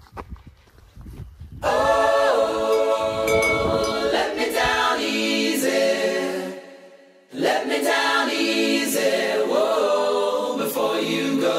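Background music of layered sung voices in close chords starts sharply about two seconds in. It fades away around the sixth second and comes back in suddenly about seven seconds in. Before it there is only a low rumble.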